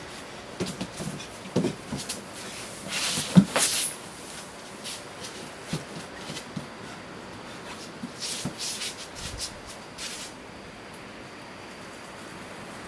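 Bare feet stepping, sliding and thumping on a smooth dance floor during a dance, with rubbing swishes. There is a sharper thump about three and a half seconds in, and clusters of swishes around three to four seconds and again around eight to ten seconds in.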